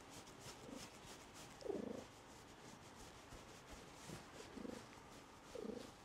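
Domestic cat purring softly, recorded right up against a clip-on microphone's furry windscreen. The purr swells louder for a moment about three times.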